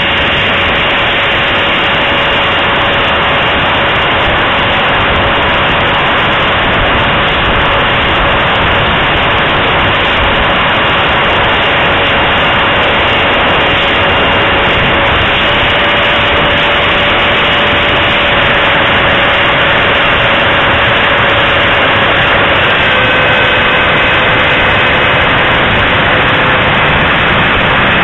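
Steady whine of a 64mm electric ducted fan on a radio-controlled jet in flight, buried in loud rushing wind on a keychain camera's microphone. The whine's pitch steps slightly a few times with the throttle, and a second, higher tone joins it near the end.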